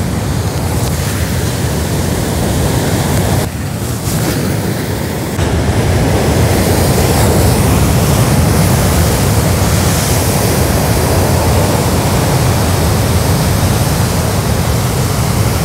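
Heavy ocean surf breaking over rocks: a continuous loud rushing wash of waves, briefly dipping about three and a half seconds in and then a little louder.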